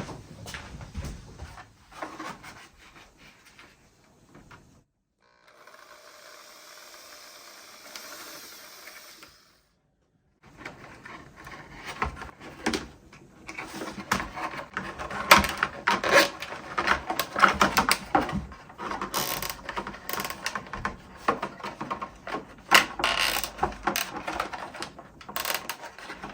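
A small drill runs steadily for about four seconds, boring out a glue-clogged hole in a Lexan RC body. It is followed by a long stretch of plastic rustling and quick, uneven clicking as zip ties are threaded through the holes and drawn through their ratchets.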